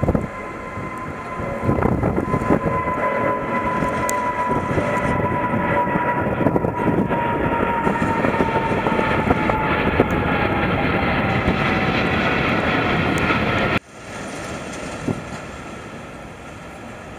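Boeing 777 jet engines at take-off power as the airliner climbs out overhead: a loud rumble with an engine whine that slowly falls in pitch as it passes. Near the end the sound cuts abruptly to a fainter, more distant jet rumble.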